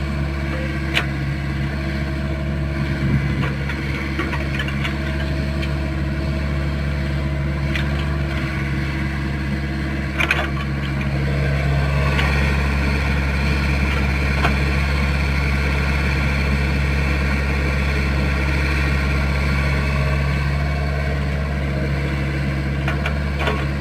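Excavator diesel engine running steadily at a low, even pitch, with a few short sharp clicks and knocks over it.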